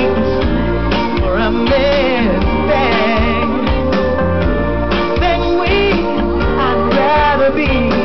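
Live pop band playing with sung vocals, amplified through a PA. It is loud and continuous, with the voices wavering over a steady backing.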